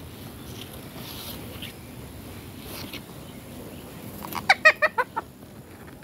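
Rose-ringed parakeet giving a quick run of about six harsh calls, one after another, about four and a half seconds in.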